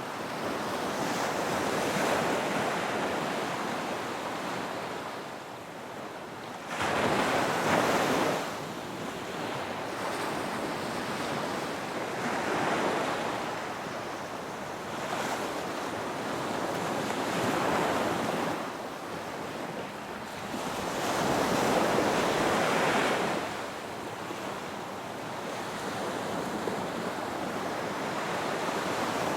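Ocean waves surging and washing in, one swell after another every four to five seconds, some louder than others.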